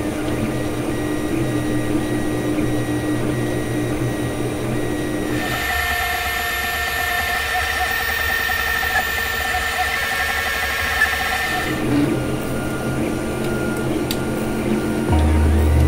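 3D printer's stepper motors whining steadily as the print head lays down a small cylinder, the set of pitches switching abruptly about five seconds in and again near twelve seconds. A deeper low hum comes in near the end.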